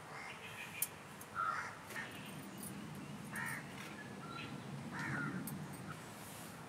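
Birds calling outdoors: four short, harsh, caw-like calls spread over a few seconds, the loudest about a second and a half in.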